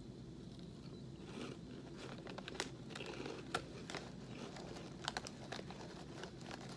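Crunchy Cheez Doodles baked cheese puffs being chewed, with the crinkly plastic snack bag rustling in sharp crackles as a hand reaches into it for more.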